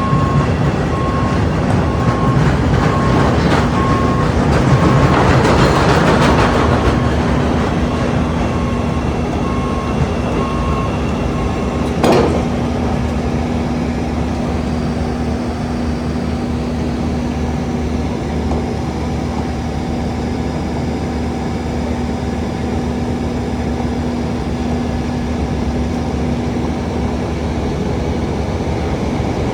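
Elevated 'L' train running along the steel structure overhead, under a steady din of street construction machinery with a low hum. A repeating high beep sounds until about twelve seconds in, and a single sharp knock lands about then.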